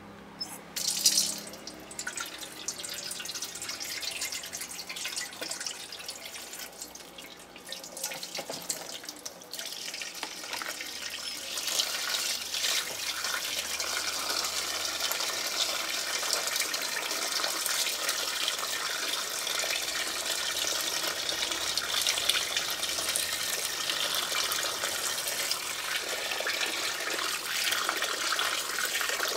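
Tap water pouring and splashing into an aluminium basin of guavas as a hand swishes the fruit to wash them. There is a short loud noise about a second in, and the water noise becomes louder and steadier after about ten seconds.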